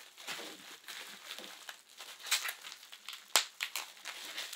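Bubble wrap crinkling and crackling irregularly as it is unwrapped by hand, with a sharp click about three and a half seconds in.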